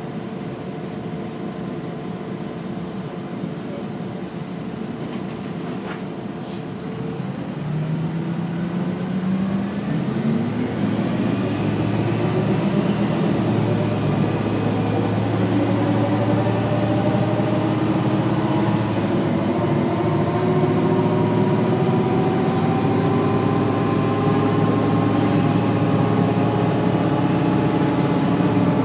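2003 Gillig Phantom transit bus running and pulling away. From about eight seconds in, a whine of several tones rises steadily in pitch as it gathers speed, with a thin high whistle that climbs and then holds. The uploader takes this for an odd axle sound.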